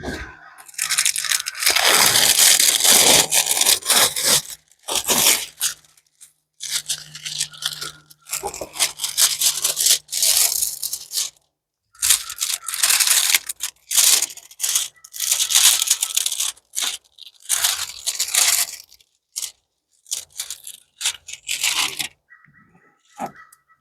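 Packaging crinkling and tearing as a diamond painting kit is unwrapped: repeated loud stretches of crackling and ripping, with short pauses between them.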